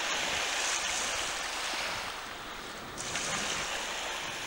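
Small waves washing in the shallows along a beach: a steady rushing hiss that swells and eases, falling back about three seconds in.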